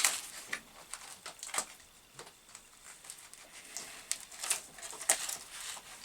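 Scattered light clicks and rustling of hand tools being handled, with several sharper taps about half a second, one and a half, four and a half and five seconds in.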